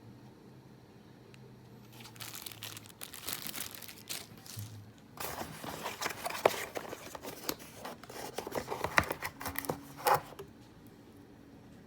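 Keyboard packaging being handled and opened: irregular crinkling and tearing of wrapping with small sharp clicks, starting about two seconds in, coming in spurts and stopping near the end.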